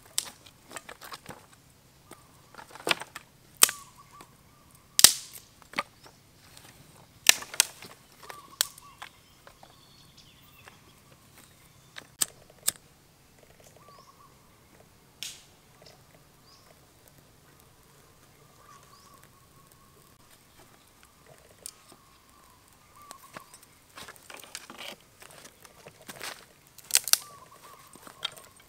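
Dry sticks and twigs snapping, a string of sharp cracks at irregular intervals, with the rustle and crackle of dry leaves being crumbled in the hands in the quieter stretches between.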